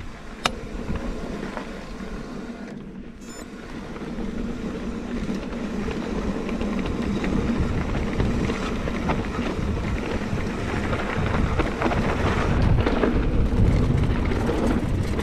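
Santa Cruz Hightower mountain bike rolling along a dirt singletrack: tyre noise on dirt with small rattles and clicks from the bike, under a low rumble of wind on the microphone, getting louder after the first few seconds.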